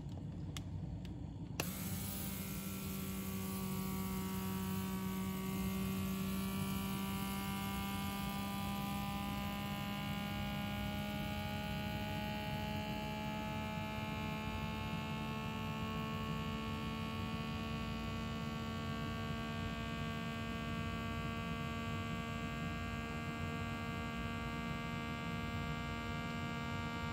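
Vacuum sealer's pump motor switching on about a second and a half in and running with a steady hum, its pitch creeping slowly upward as it sucks the air out of a fermenter sight glass through a tube.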